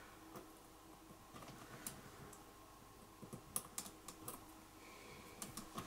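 Faint, scattered small clicks and scrapes of electrical wires being handled and pushed into a plastic wire connector inside a wall junction box.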